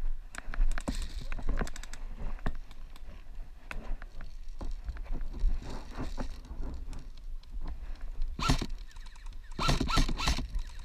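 Footsteps and the rustle of dry grass and gear as a person moves through tall brush, with many small scuffs and clicks and a few louder bursts near the end.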